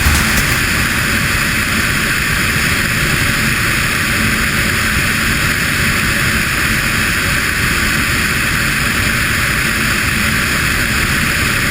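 Cessna 303 Crusader's twin piston engines and propellers droning steadily in cruise flight, a loud even rush without change.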